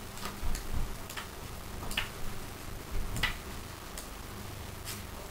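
Irregular light clicks and taps, about one every half second to a second, from hands handling something small, with a couple of soft low bumps. A faint steady low hum runs underneath.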